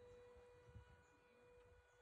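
Near silence, with a faint steady tone throughout and a faint low rumble.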